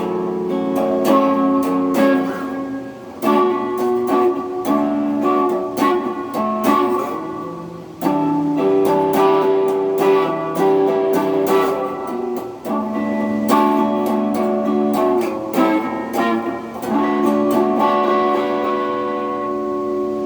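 Electric guitar played through an amp, chords strummed and picked with notes left to ring, its two pickups selected together and wired out of phase.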